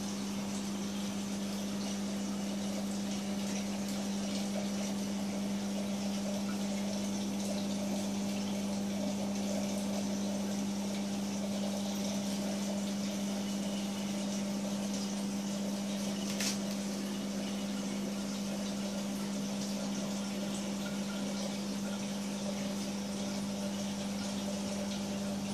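Marine aquarium's pumps and water circulation running: a steady low hum over an even rush of moving water, with one brief click about two-thirds of the way through.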